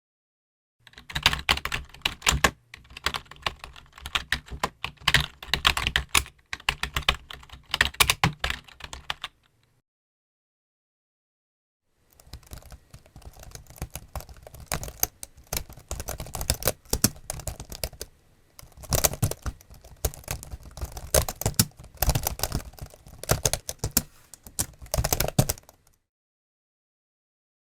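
Typing on a computer keyboard: fast, uneven key clicks in two runs. The first starts about a second in and lasts about eight seconds, and the second follows a pause of nearly three seconds and lasts about fourteen seconds.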